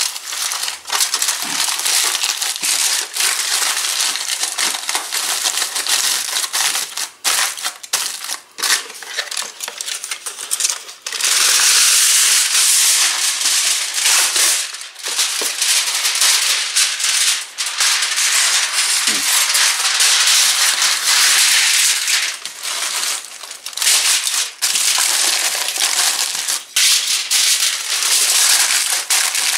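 Aluminum foil crinkling and crumpling as hands fold and wrap it into a packet: a dense crackle of many sharp crinkles, louder and more continuous from about a third of the way in.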